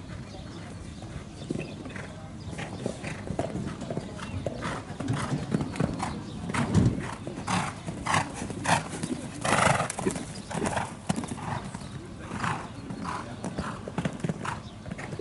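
Horse cantering on sand footing: hoofbeats in a regular rhythm of about two strides a second, growing louder as the horse passes close by near the middle and fading again toward the end.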